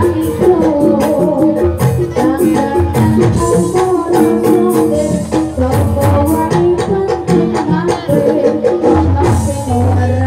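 Live jaranan gamelan music: rapid, busy drum and percussion strikes over steady ringing metal tones. A deep gong hum grows strong again near the end.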